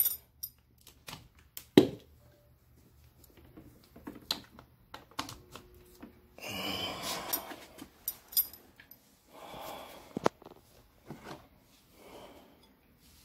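Scattered clicks and knocks, the loudest about two seconds in, with two short rustling swells in the middle: handling noise as a bowl and a handheld camera are moved about.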